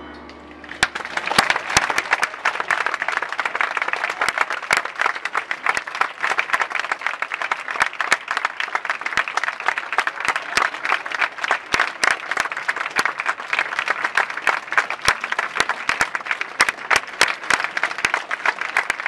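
Audience applauding, starting about a second in and holding steady, with some loud single claps close by standing out.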